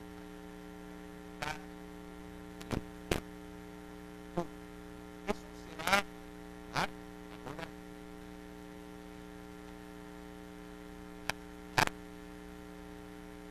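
Steady electrical mains hum, a low buzzing tone with many overtones, broken about ten times by brief faint blips, a few of them short voice-like snatches.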